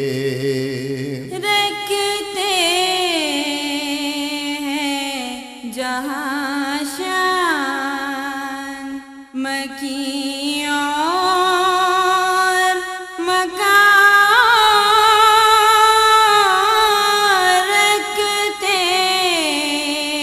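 Devotional naat sung by a solo voice in long, ornamented phrases, with pitch sliding and wavering between held notes and short breaks between the lines.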